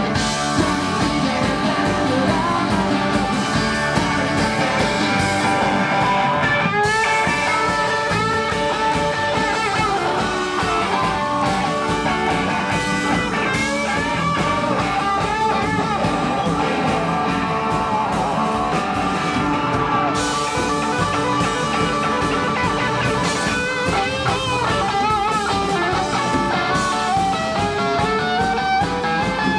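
Live rock band playing: electric guitars and a Nord Electro 3 keyboard over a steady beat, with a sung or shouted vocal. Near the end a note slides steadily upward.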